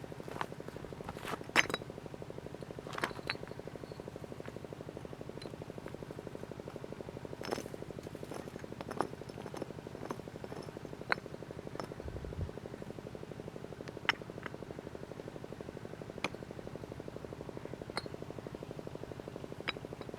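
Scattered light clicks, knocks and clinks of camping gear and food items being handled, one every second or two, over a steady low hum.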